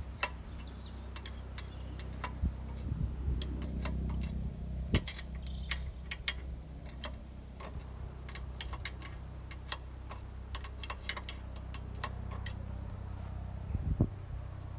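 A ratchet and socket clicking in short runs as the locking nuts on a Vermeer RTX 250 trencher's chain adjuster are wound up, with a few sharper metal knocks. A steady low hum runs underneath.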